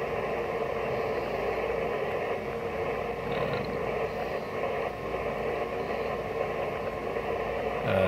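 Steady hiss of band noise from a Yaesu FT-991A transceiver's receiver, tuned to 14.074 MHz upper sideband, the 20-metre FT8 frequency.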